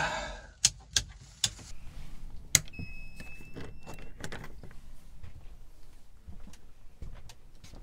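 A few sharp clicks, switches being flipped on a narrowboat's electrical panel, with handling noise. About three seconds in, a short high steady electronic tone sounds for about a second.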